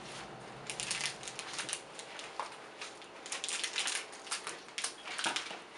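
Crinkly foil wrapper of a toy blind bag being handled and pulled open by hand, with irregular crackles.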